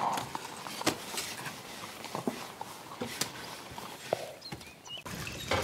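Workshop sound effects of potters working clay in wooden molds: scattered, irregular light knocks and taps over a low hiss.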